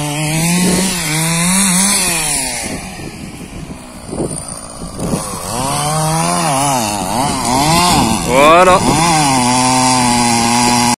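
Stihl MS 660 two-stroke chainsaw cutting into a felled poplar trunk, its engine pitch rising and falling as the bar is loaded and eased. It drops to a quieter, lower run for a couple of seconds near the middle, then revs back up into the cut.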